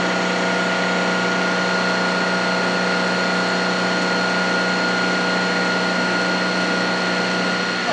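Metal lathe running under power feed, its carbide tool bit taking a 0.500-inch-deep cut in steel at 0.021 inch per revolution. A steady machine hum with a steady high whine over it.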